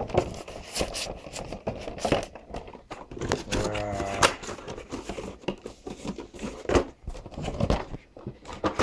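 Nendoroid figure packaging being opened and handled: cardboard and plastic crinkling and tearing, with many scattered clicks and knocks.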